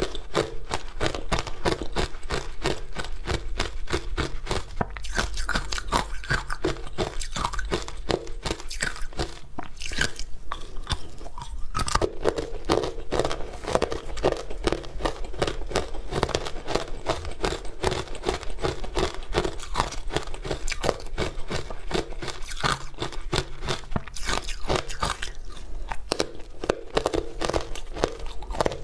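Close-miked crunching and chewing of powdery frozen ice coated in matcha green tea powder, a fast continuous run of crunches.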